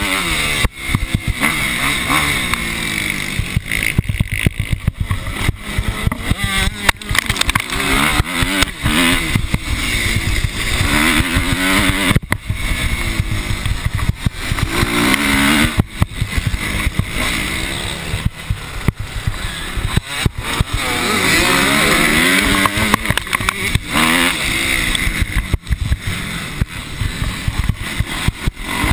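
Motocross bike engine, heard from a camera mounted on the bike, revving up and down again and again through gear changes and corners. Frequent sharp knocks are heard along with it.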